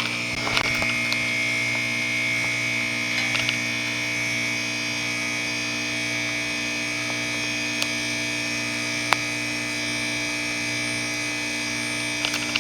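2004 Goodman 3.5-ton heat pump running in its defrost cycle: a steady hum with a high whine and hiss over it, and a few light clicks.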